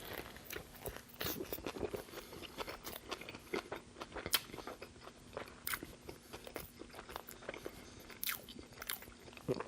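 Close-miked chewing of a mouthful of fast-food burger: wet mouth sounds with many small, irregular crunchy clicks.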